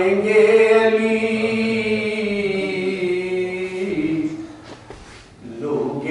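A man's unaccompanied voice chanting soz, the mournful Urdu elegy, holding one long drawn-out note that steps lower about four seconds in. A brief breath pause follows before the next phrase begins near the end.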